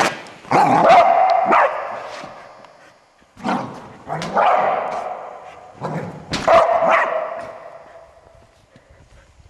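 Australian Shepherd barking loudly in three bouts, each fading out over a second or two.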